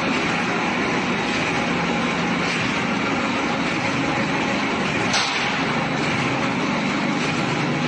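Steel scaffolding board roll forming machine running: a steady, loud mechanical noise of motors and rollers, with a single sharp knock about five seconds in.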